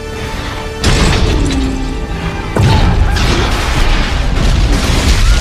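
Film battle sound mix: two heavy explosions, about one second in and again about two and a half seconds in, over a music score.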